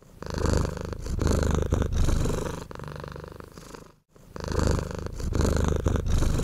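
Persian cat purring in long swells that rise and fall with its breathing. The purr breaks off for a moment about four seconds in, then starts again.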